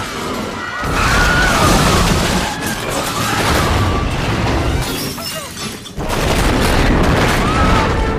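Film sound mix of a subway train crashing through a station: heavy booms and crashing, shattering debris over a musical score, with a brief dip just before a sudden loud hit about six seconds in.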